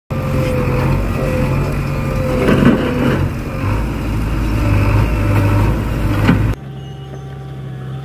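Backhoe loader's diesel engine running hard while it digs, with a couple of metal clanks. About six and a half seconds in it cuts off abruptly to a quieter, steady engine hum.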